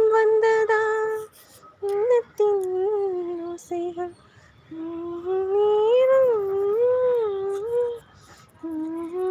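A woman humming a wavering tune in several phrases, with short pauses between them.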